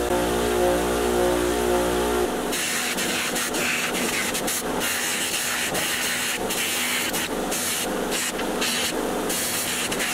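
Bench buffer motor running with a steady hum, then, from about two seconds in, a small metal toy truck part pressed against the spinning cloth buffing wheel: a loud hissing rush that drops out briefly several times as the part is lifted and shifted.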